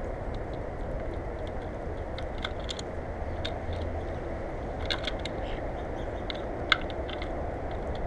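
European starlings pecking at a seed and nut mix on a platform feeder: irregular sharp taps and clicks of beaks striking seed and tray, the loudest a little before the end, over a steady low rumble.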